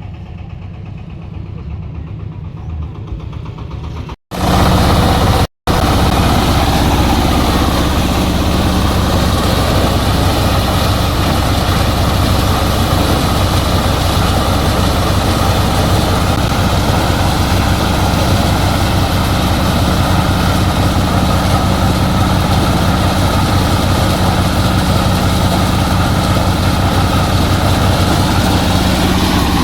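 Engine of a corn-shelling machine running steadily. Two brief dropouts come about four and five seconds in, after which it runs louder.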